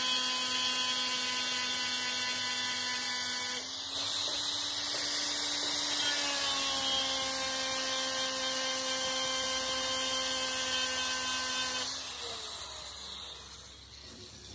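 Power grinder's abrasive wheel grinding down the weld-built-up tooth of a truck differential gear: a steady motor whine under the hiss of grinding, with a brief dip about four seconds in. About twelve seconds in the grinding stops and the sound dies away.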